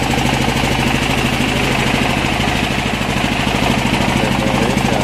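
An engine idling steadily, with a rapid, even firing rhythm.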